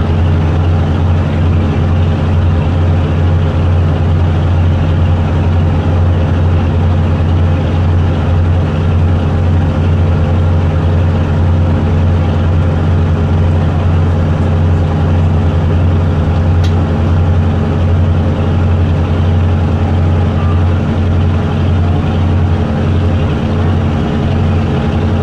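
Boat engine running steadily: a loud, even, low drone with a constant hum.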